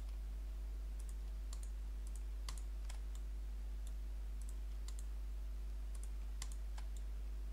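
Scattered clicks of a computer mouse and keyboard, about a dozen short separate clicks over several seconds, over a steady low electrical hum.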